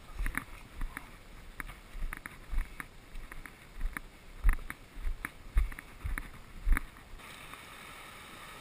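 Footsteps on a rocky sandstone ledge close to the microphone, irregular thuds and scuffs about two to three a second. The steps stop about seven seconds in, leaving a steady hiss.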